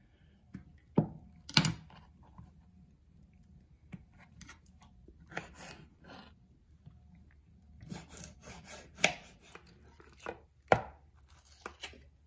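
A kitchen knife cutting avocado on a plastic cutting board: irregular taps and knocks of the blade against the board with some soft scraping strokes, and a few louder knocks, the loudest near the end.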